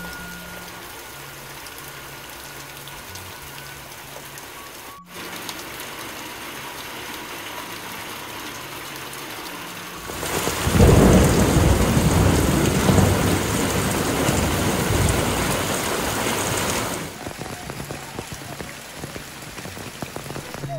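Steady rain falling. About halfway in, a long rumble of thunder swells up and lasts several seconds before the rain goes on alone.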